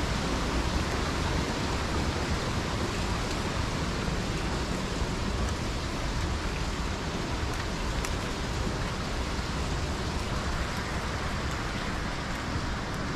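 Stream with small waterfalls, water rushing in a steady, even wash.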